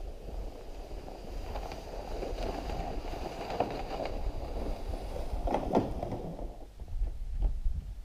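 A plastic sled loaded with split firewood dragged over snow, a steady scraping hiss, with a few knocks from the load about five and a half seconds in; the sliding stops near the end.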